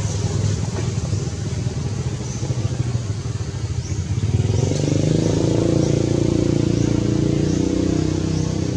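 A motor vehicle engine running steadily, its drone shifting to a stronger, higher tone about halfway through. Short high chirps repeat about once a second over it.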